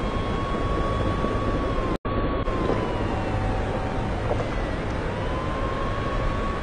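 A siren wailing slowly, its pitch rising, holding and falling, over a steady rumble, with a brief dropout in the sound about two seconds in.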